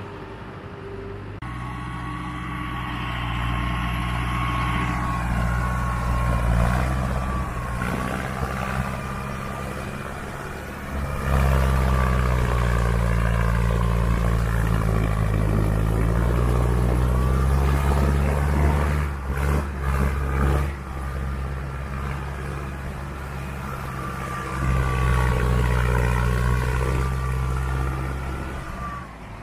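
Diesel tractor engine working under load, its pitch stepping up and down several times as it pulls, with a thin steady high whine above the engine note.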